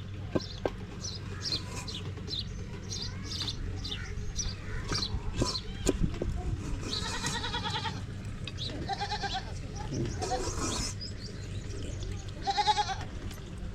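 Goats bleating several times, one call drawn out for about a second, the others shorter.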